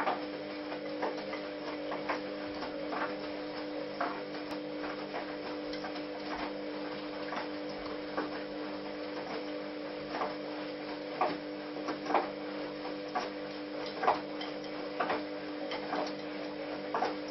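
Bush front-loading washing machine running a wash: a steady motor hum with a light tick or knock about once a second.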